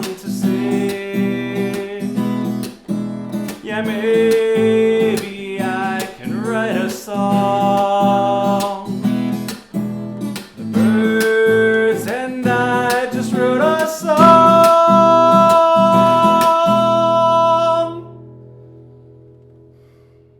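Acoustic guitar played as the song's outro, strummed and picked chords with a held final chord from about two-thirds in; it stops abruptly and the ring fades out over the last couple of seconds.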